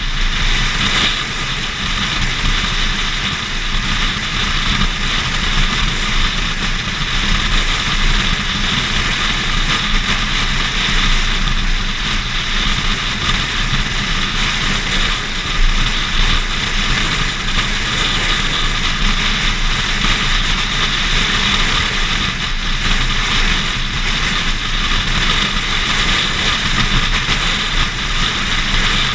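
Steady wind rush and tyre and road noise from a car driving at highway speed, heard through a camera mounted on the outside of the car, with wind blowing across the microphone.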